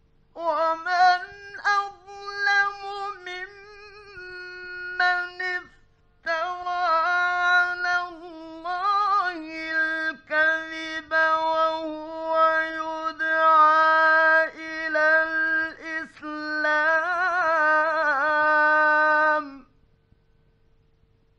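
Male Quran reciter's voice in melodic mujawwad recitation: one long, high melismatic phrase of held, wavering notes, with a short break about six seconds in. It stops shortly before the end, over the faint steady hum of a late-1950s radio studio recording.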